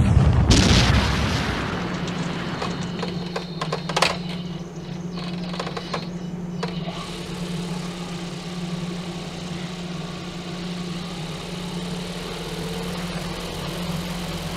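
A film explosion: a big blast at the start that dies away over a couple of seconds, with sharp cracks about four seconds in. From about seven seconds in, a Joby Motors JM1 electric motor spins a large 37x13 RC airplane propeller steadily under a Lebowski FOC controller, a steady hum with one held tone.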